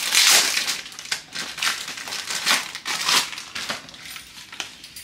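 Packaging crinkling and rustling as it is handled and pulled away from an unwrapped item, in several bursts: loudest right at the start, with more about one and a half, two and a half and three seconds in, then dying down near the end.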